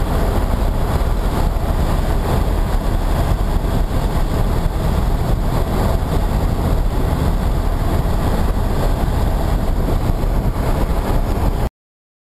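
Loud, steady rush of wind and road noise from a vehicle driving at speed, with wind buffeting the microphone. It cuts off abruptly near the end.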